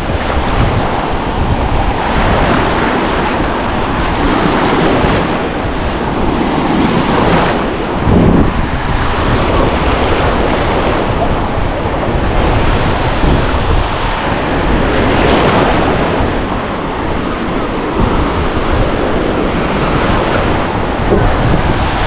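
Black Sea surf washing onto the shore, swelling and easing every few seconds, with wind rumbling on the microphone.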